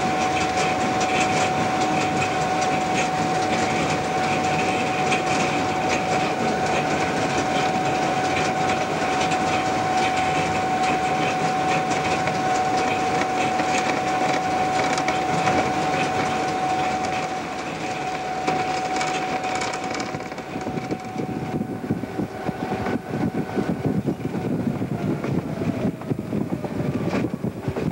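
Algoma Central GP38-2 diesel locomotive running along snow-covered track, wheels clattering over the rails under a steady whine. After about 20 seconds the running noise eases and the whine fades and falls in pitch.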